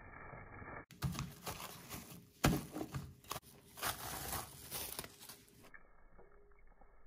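Plastic cling wrap crinkling and crackling as it is handled over a stainless steel bowl, in irregular rustles with a sharp crackle about two and a half seconds in; it stops about a second before the end.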